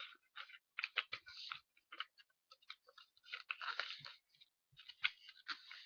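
A sheet of paper being folded and creased by hand, crinkling and crackling in irregular bursts with short pauses between.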